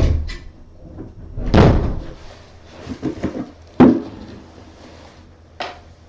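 A series of knocks and thumps from objects being handled and set down: a heavy thud about a second and a half in, a few small knocks, then a sharp loud knock near four seconds and a lighter one near the end.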